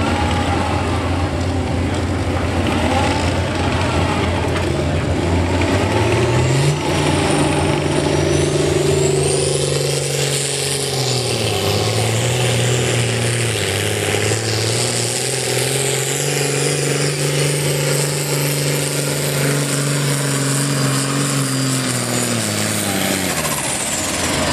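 John Deere pulling tractor's diesel engine at full throttle, hauling a weight-transfer sled. The engine note climbs as it launches about six seconds in, sags briefly partway, holds steady, then drops away near the end as the pull finishes.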